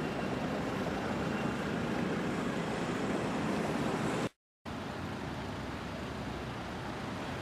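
Steady road traffic noise of passing cars, with the sound dropping out completely for a split second a little over four seconds in.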